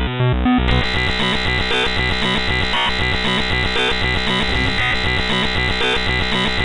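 Emergency Alert System-style alarm made of synthesized tones. A pulsing on-off beep pattern switches less than a second in to a loud, continuous cacophony of many clashing tones.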